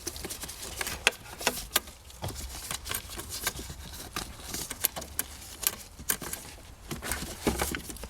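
Irregular light clicks, taps and rattles of hands handling parts in a car's dashboard behind the glove box opening.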